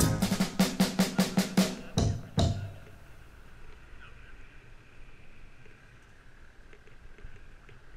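Background music: a fast run of drum hits ends the tune with two final accents about two seconds in, followed by a faint steady hiss.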